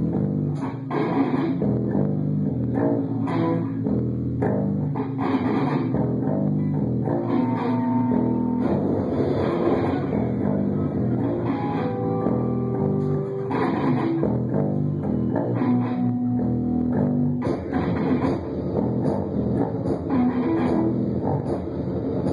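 Live improvised instrumental rock played through amplifiers: electric guitar with bass guitar, picked and strummed continuously with some held notes.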